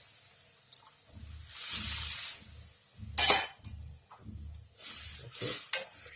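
Spoon stirring a wet semolina-and-water mixture in a hot pan: a run of short scrapes against the pan, with a sharp clatter about three seconds in, over a faint sizzle that fades in the first second.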